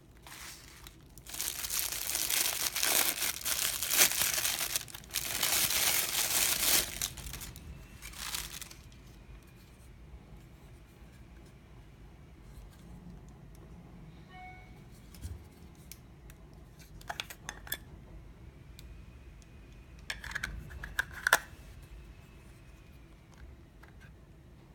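Packaging being torn open and crinkled by hand, in two long noisy stretches over the first seven seconds and a short one just after. After that, quieter handling with a few small clicks and taps.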